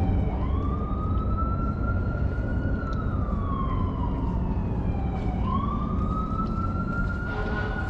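Emergency vehicle siren in a slow wail: the pitch climbs, slides slowly down, then jumps back up and climbs again, about one cycle every five seconds. A steady low rumble runs underneath.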